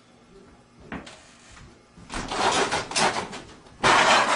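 A picked door lock giving a click about a second in, then the noise of the door being worked open, which gets much louder near the end.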